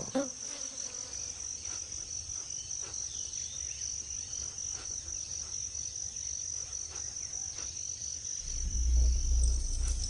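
Steady high-pitched chorus of jungle insects, one unbroken trilling tone. A low rumble comes in about eight and a half seconds in and is the loudest thing near the end.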